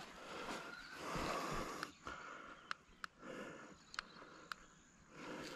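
Soft rustling footsteps creeping over dry sand and leaf litter, with several small sharp clicks of twigs or gear scattered through.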